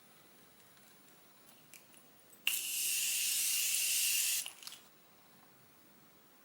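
An aerosol spray can releasing one continuous hiss of about two seconds, starting and stopping abruptly, with a few small clicks just before and after.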